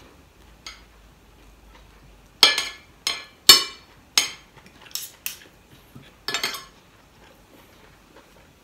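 Metal spoon and fork clinking and scraping against a ceramic plate while scooping rice and meat: a run of sharp clinks with a short ring, most of them between about two and a half and six and a half seconds in.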